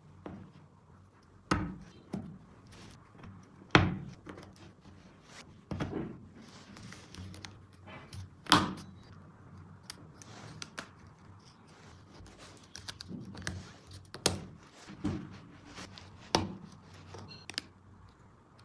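Hard plastic toy pieces being handled and knocked together: irregular clicks and light taps, with several louder thunks.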